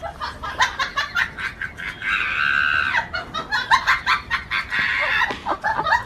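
Rooster and hens squawking and clucking, with a quick run of short scuffling sounds, as the rooster fights a dog through metal gate bars.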